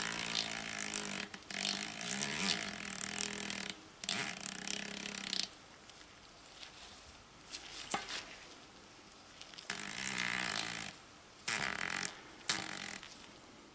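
Newly fitted DT Swiss star-ratchet freehub body being turned by hand, its ratchet clicking in a long spell of about five seconds, then three short spells near the end.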